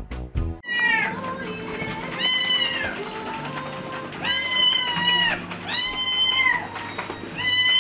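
Kitten meowing repeatedly, about four or five high, drawn-out meows a second or so apart, after a brief snatch of strummed music at the very start.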